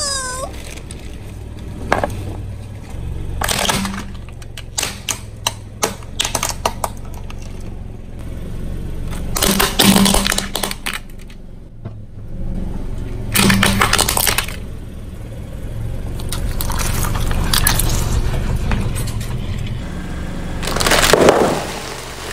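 A car tyre rolling over and crushing plastic toys and bags of crunchy snacks: a run of sharp cracks, snaps and crunches over the car's low running hum. The loudest crunch comes near the end.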